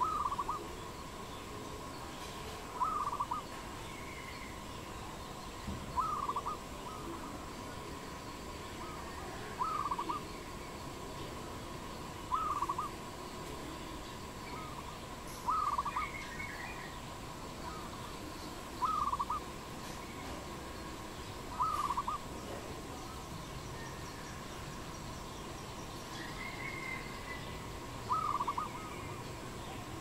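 A dove cooing a short phrase of several quick notes, repeated about every three seconds, over a steady faint tone.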